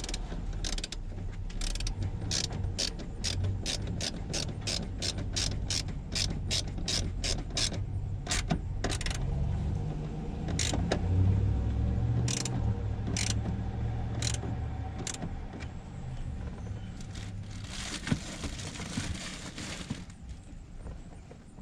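Hand ratchet clicking in steady strokes, about two to three clicks a second, thinning out to occasional clicks after about eight seconds, over a low steady hum. A brief rush of hiss comes near the end.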